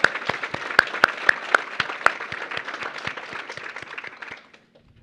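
Audience applauding, with a few loud, close hand claps standing out among many; the applause dies away near the end.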